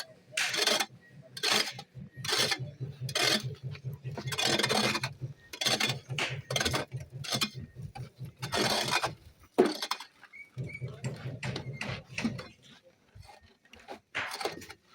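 Hand digging with a small hoe (jembe) in a narrow pit: irregular scraping and chopping strokes in soil, roughly one a second, over a low hum that briefly drops out near the middle.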